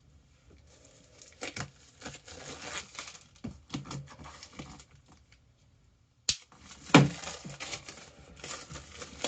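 Plastic wrap being torn and crinkled off a product box, in a series of short rustles and clicks, with a sharp click and then a heavier thump about seven seconds in.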